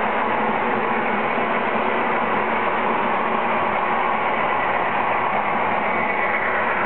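MTH O gauge BNSF diesel model train running on the layout: a steady, even rumble of wheels on the track mixed with the locomotive's diesel engine sound.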